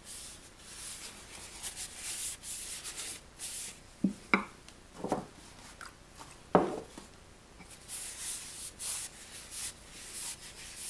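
Paper towel rubbing over a wooden spinning top as Danish oil is wiped on, a run of soft scrubbing strokes. A few short knocks stand out, about four seconds in and again near seven seconds.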